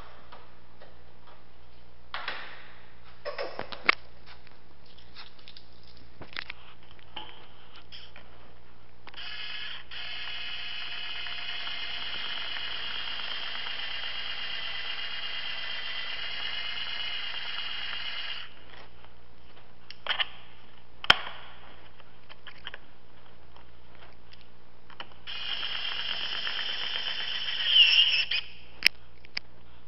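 A small electric driver runs with a steady whine for about nine seconds mid-way and again for a few seconds near the end, with sharp clicks of tools and parts in between as a scooter footboard is fitted. The audio is sped up.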